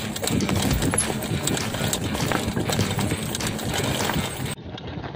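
Mountain bike rolling fast down a rough gravel dirt trail: tyres crunching over loose stones with a constant clatter and rattle of the bike over the bumps. Near the end the sound turns abruptly duller.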